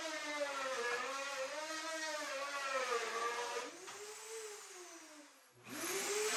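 Handheld router with a bearing-guided trim bit cutting along the edge of a chine laminate, trimming it flush with the chine top rail. The motor whine dips and rises in pitch as the bit bites into the wood. Near the end it nearly stops and then climbs quickly back up to speed.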